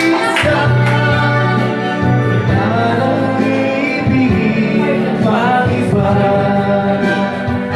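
A man singing karaoke into a handheld microphone over the song's backing music, holding long notes.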